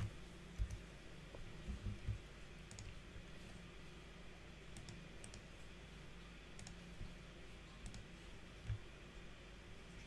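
Faint, scattered clicks of a computer mouse and keyboard, with a few soft low thumps, over a quiet steady room hum.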